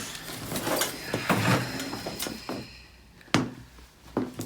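Rustling and shifting on a chiropractic treatment table during a neck adjustment, then one sharp, loud crack about three seconds in and a smaller click near the end.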